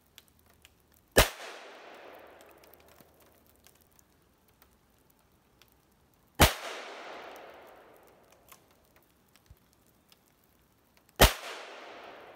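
Three shots from a suppressed .308 AirForce Texan big bore air rifle fitted with a DonnyFL Emperor suppressor, about five seconds apart. Each is a sharp crack followed by an echo off the woods that fades over a second or two.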